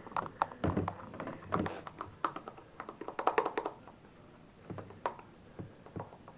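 Slime being stirred in a container: a utensil taps and clicks quickly against its sides, with the clicks thinning out to a few scattered ones about four seconds in.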